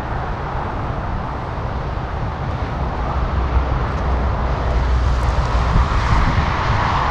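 Wind buffeting the camera microphone: a steady, loud rush with a deep rumble that swells in the middle.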